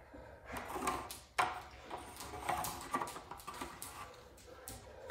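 Pencil scratching on wood as a circle is traced around a guide, with scattered small knocks of the wood and guide being handled; the sharpest knock comes about a second and a half in.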